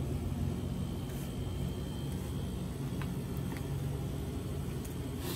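Steady low rumble of road traffic, with a few faint clicks about three seconds in.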